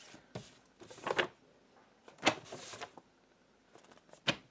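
Handling noise: about four short clicks and knocks, with a brief rustle a little past the middle, as objects are handled.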